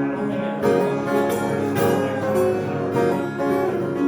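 Music with no singing: acoustic guitar strummed in a steady rhythm.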